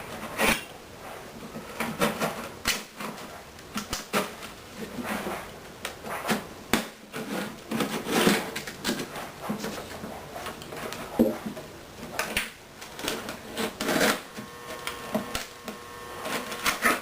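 Irregular clicks, taps and scrapes of hand tools working at a wooden guitar body as the binding and back are pried off. A faint steady hum comes in near the end.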